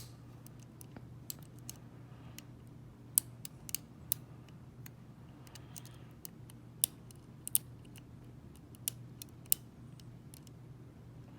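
A lock pick and tension wrench working the pins of a Zeni cabinet lock, making sharp, irregularly spaced metal clicks and softer ticks.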